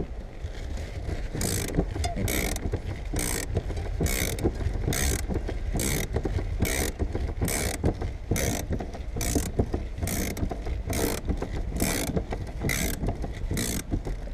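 Wire-out tool winding its cutting line through the back-glass urethane, a ratcheting mechanism working in regular strokes about one every 0.85 seconds, each stroke with a short rasping hiss.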